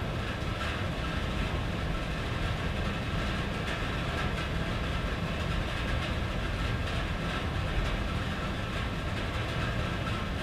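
Rain on a tin roof: a steady, even patter of drops on metal over a continuous low rumble.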